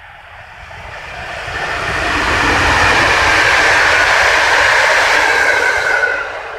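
Electric-locomotive-hauled passenger train passing close by on the line. The running noise of wheels on rail swells as it approaches, holds loud for a few seconds, then drops off sharply near the end as the train goes by. A higher hum in the noise sags slightly in pitch as it passes.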